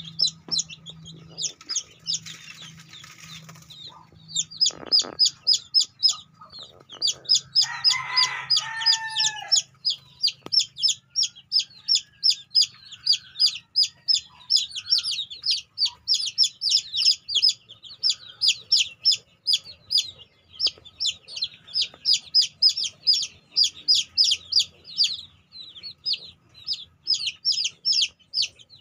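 One-week-old native chicks peeping continuously, a chorus of short, high, falling peeps many times a second. About eight seconds in, a single lower call from an older chicken stands out.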